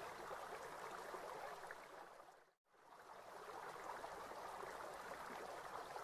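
Faint running water, an even rushing hiss that fades out to a moment of silence about two and a half seconds in, then fades back up.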